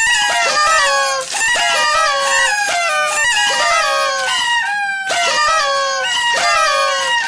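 Chicken squawking and crowing, with short falling calls repeated one after another and a brief break about five seconds in.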